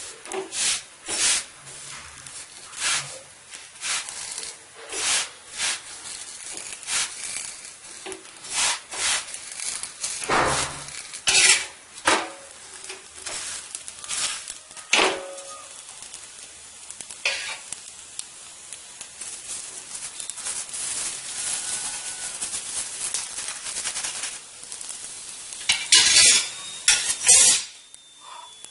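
Steel spatula scraping and tapping on a cast-iron tawa as a chapati is pressed and turned, with a steady sizzle of it cooking between the strokes. A burst of louder clatter comes near the end.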